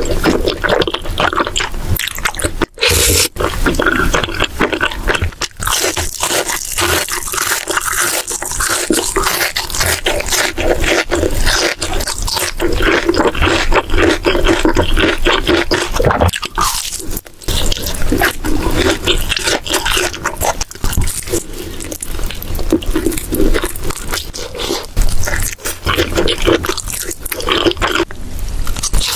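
Close-miked eating: crunching and chewing of crunchy food, a dense run of crackling bites and chews, with a few brief breaks.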